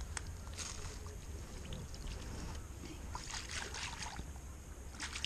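Shallow lake water sloshing and trickling at the shoreline as a released bass is let go by hand, in a few short bouts over a steady low wind rumble on the microphone.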